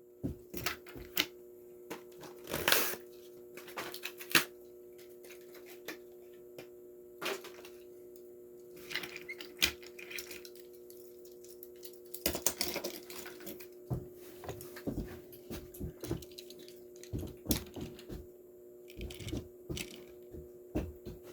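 Plastic and cardboard packaging of a toy car being opened by hand: irregular clicks, crackles and rustles, some sharper than others, over a steady low hum.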